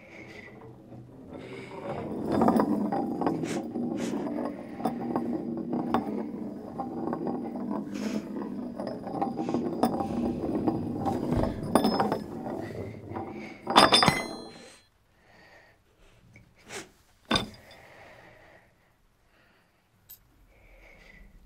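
A small round metal disc spinning on its edge on a hard floor, giving a busy rattling clatter for about ten seconds. It then drops with one loud clink that rings on briefly, followed by a few faint taps.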